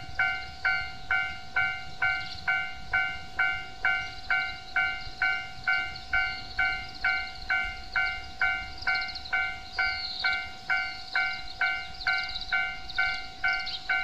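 Japanese level-crossing warning bell ringing steadily at about two strikes a second, each strike a ringing tone that dies away. The bell sounds with the red lamps flashing: a train is approaching the crossing.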